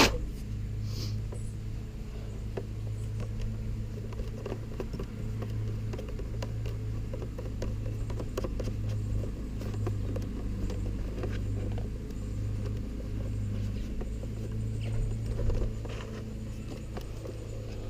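Faint clicks and scratching from small parts and wiring being handled, with one sharp click right at the start, over a steady low hum.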